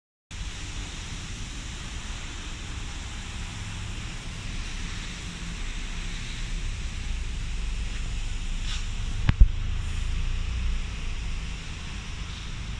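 Steady background noise with a low rumble and a hiss, with one sharp knock about nine seconds in.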